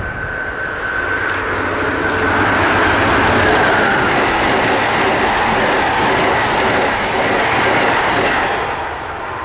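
Amtrak passenger train led by an ACS-64 electric locomotive passing at speed: a loud rush of wheels on rail that builds to its peak about three seconds in, holds as the passenger cars go by, and tapers off near the end. A steady high whine runs through the first half.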